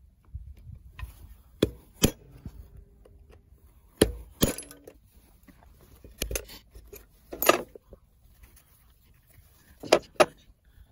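Sharp metal-on-metal clinks and knocks, about eight in irregular bunches, from a screwdriver prying and striking at the rusty bevel gears inside an old hand drill's gear housing. A couple of them leave a short ringing tone.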